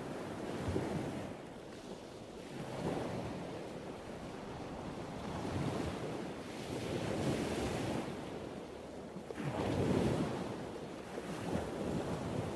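Ocean surf: waves breaking and washing in a continuous rush that swells and ebbs, with one larger wave surging about ten seconds in.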